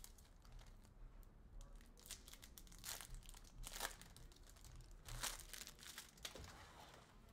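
Foil wrappers of hockey card packs being torn open and crinkled by hand, in faint short crackles, the strongest about three, four and five seconds in.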